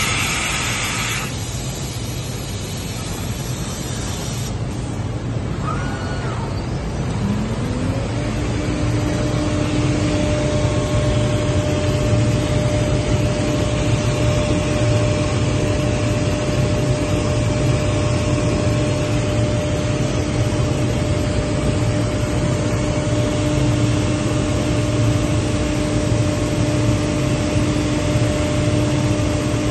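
SCM Record 132 CNC router's spindle spinning up with a rising whine about seven seconds in, then holding a steady pitch while its V-bit engraves a wooden board. Underneath is a constant machine hum and rush.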